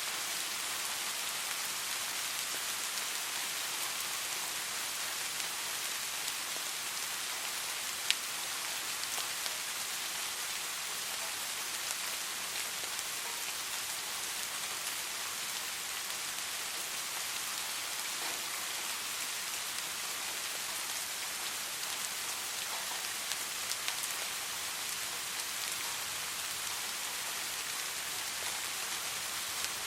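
Soft steady rain falling, an even hiss with scattered individual drops ticking, one sharper drop about 8 seconds in.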